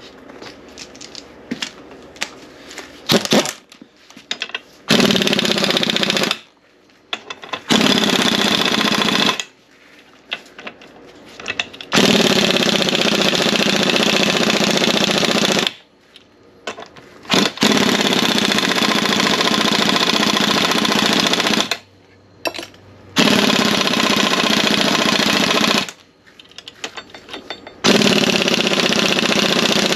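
Impact wrench driving a nut on a strut assembly, hammering in six bursts of one to four seconds each with short pauses between.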